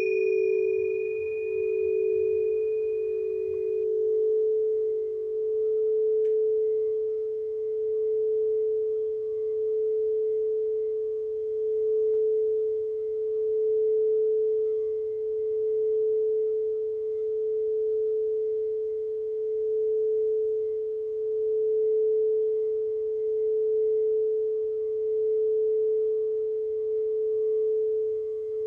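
Singing bowl ringing on with a steady pure tone that swells and fades slowly, about every four seconds. A slightly lower bowl tone pulses and dies away in the first few seconds.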